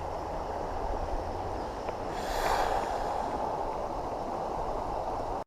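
Steady rushing noise of flowing creek water, with a brief swell of hiss about two seconds in.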